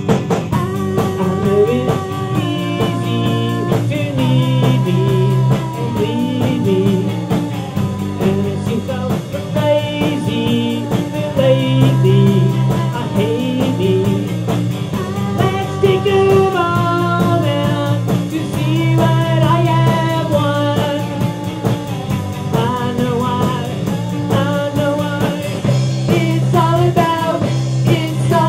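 Rock band playing: a man singing lead over electric guitar, bass guitar and drums.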